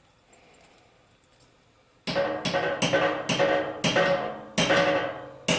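A metal tool knocked repeatedly against metal, about seven loud ringing knocks starting about two seconds in, each ringing at the same pitches and dying away, as when excess molten lead is shaken off a skimmer full of wheel-weight clips.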